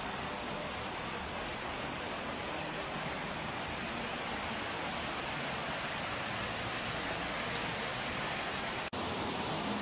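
Steady rushing noise with no distinct events. It breaks off for an instant near the end and resumes slightly louder.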